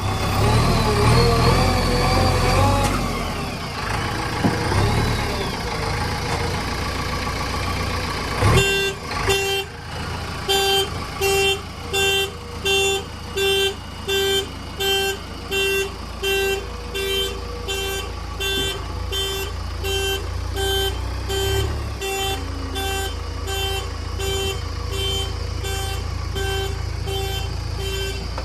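Heavy diesel engine running, with a reversing alarm starting about a third of the way in and beeping steadily, about one and a half beeps a second.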